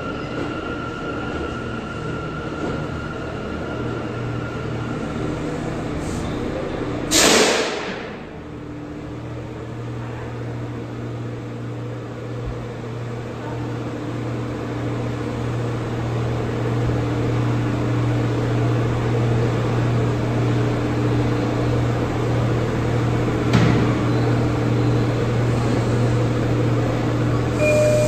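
R179 subway train standing at the platform: a high whine fades out over the first few seconds, a loud short hiss of released air comes about seven seconds in, then a steady low hum as the train sits with its equipment running. Near the end the doors open.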